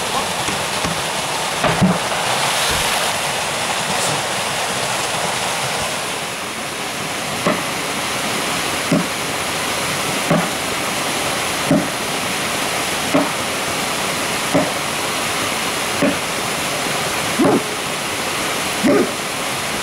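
Steady rush of a waterfall close by. From several seconds in, an axe chops into a log with a sharp knock about every second and a half, nine strikes in all.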